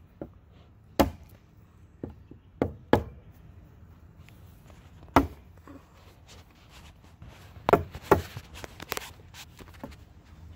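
Ball-peen hammer striking a wooden deck top rail, driving it down over the wire ends of hog wire fencing: about eight sharp, irregularly spaced knocks.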